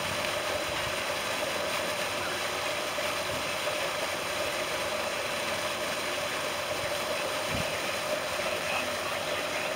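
Steady splashing and hiss of a pond fountain's spray jet falling back onto the water.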